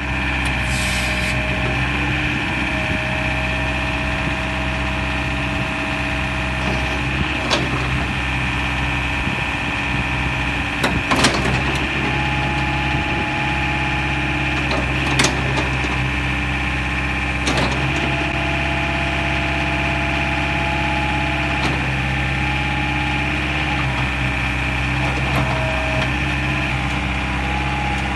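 Caterpillar 307B mini excavator's diesel engine running steadily while the boom and bucket are worked, with whining tones that come and go as the hydraulics are moved. A few sharp knocks sound as the arm moves.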